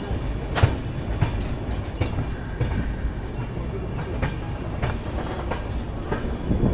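Chennai Rajdhani Express passenger coach running, heard from its open door: a steady rumble of wheels on the track, with sharp clacks as the wheels cross rail joints and points, the loudest about half a second in.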